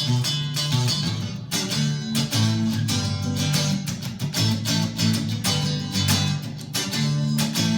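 Telecaster electric guitar played with a clean tone, strummed chords ringing on over sustained low notes.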